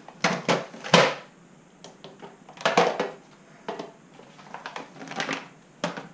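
Handling clatter: several groups of sharp knocks and clicks as exhaust parts and a scale are picked up and set down on a hard surface.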